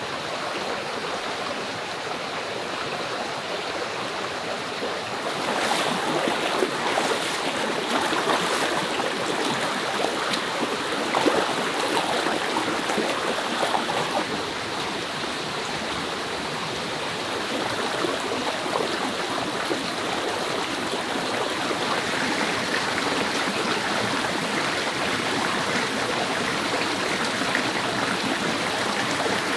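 Steady rush of running water, louder for a stretch from about five seconds in.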